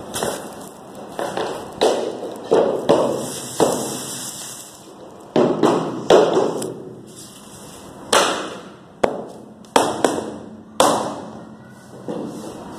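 Rubber mallet knocking on a wooden tapping block to drive floorboards together on foam underlay: about a dozen sharp knocks at uneven intervals, each with a short ringing tail.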